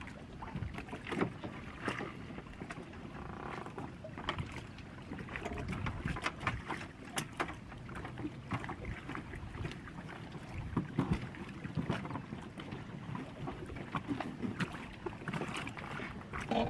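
Choppy water lapping and slapping against an inflatable dinghy, with irregular knocks and clatter throughout.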